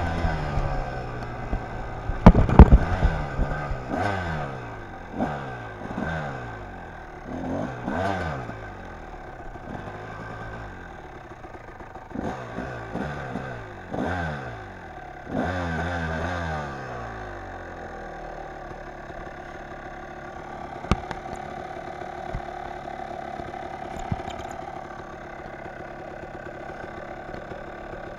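Kawasaki dirt bike engine revved in repeated short bursts, the pitch dropping away after each one, with a loud clatter about two seconds in. In the last ten seconds it settles to a steady low run near idle, with a couple of sharp ticks.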